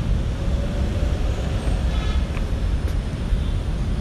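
Steady low rumbling background noise, with a faint, brief higher tone about two seconds in.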